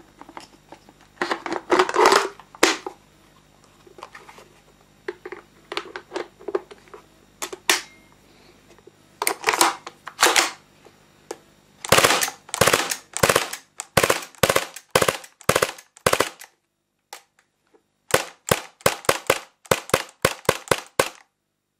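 Tanio Koba VP70 airsoft pistol with its shoulder stock fitted: handling clicks, then shots, first single shots and then a fast run of shots near the end.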